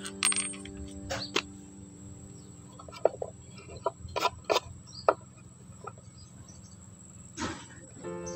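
Wooden strip and small hardware handled on a plywood board: scattered short knocks and taps of wood, a dozen or so, loudest about a second in and between three and five seconds in. Background music plays over the first second or so and comes back at the very end.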